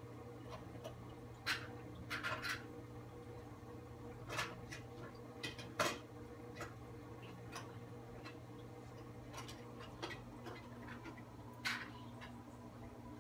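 Steady low hum of a running reef aquarium's pumps, with scattered sharp clicks and taps at irregular intervals, the loudest about six seconds in.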